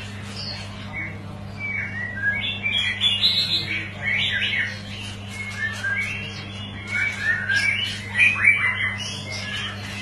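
White-rumped shama (murai batu, Medan type) singing steadily: a continuous, varied song of whistled phrases, pitch glides and quick chirps, loudest around three to four seconds in and again near eight seconds. A faint steady low hum lies underneath.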